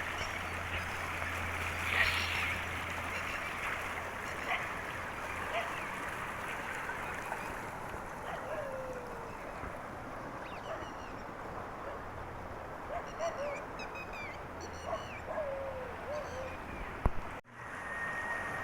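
Outdoor ambience: a steady rushing noise with scattered short animal calls and high bird-like chirps over it, cutting out abruptly for a moment near the end.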